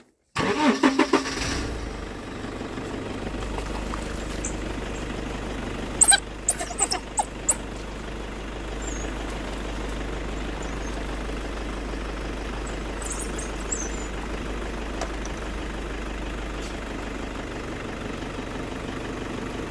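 A vehicle engine idling steadily with a low hum, with a few sharp clicks or knocks just after it begins and again about six to seven seconds in.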